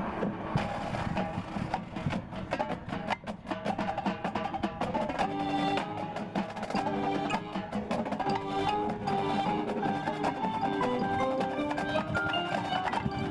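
Marching band playing, with percussion and mallet instruments striking rapid notes; from about five seconds in, sustained pitched notes move in steps through the middle register.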